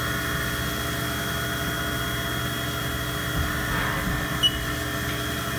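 CNC milling machine running a light finish pass, spindle at about 5,000 rpm: a steady hum with several steady whining tones, the cut itself hardly heard.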